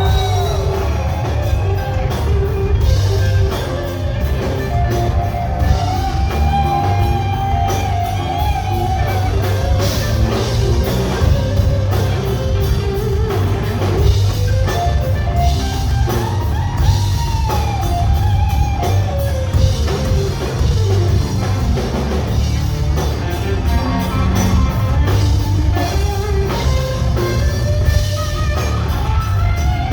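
Live rock band playing loudly in an instrumental stretch: electric guitar with bending lead lines over bass and drum kit.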